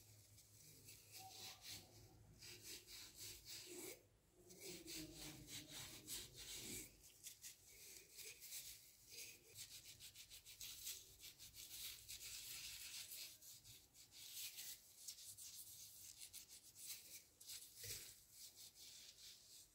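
Steel wool rubbing over a small brass vase in quick, faint, hissing scrubbing strokes, pausing briefly about four seconds in.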